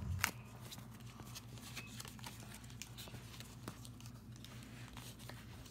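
Trading cards and a foil booster-pack wrapper being handled: faint crinkling and a scatter of light ticks over a steady low hum.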